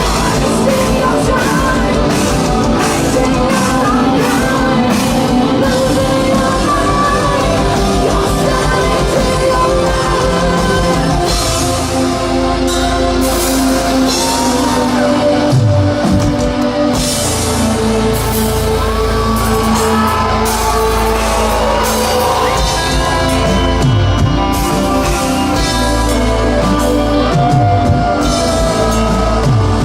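Live heavy metal band playing loud, with distorted guitars and drums. A fast, even kick-drum rhythm runs for about the first ten seconds, then the song shifts into a heavier, slower section with singing.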